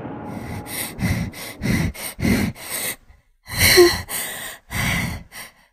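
Rapid, breathy puffs of breathing, about two a second, with a brief pause near the middle of the run.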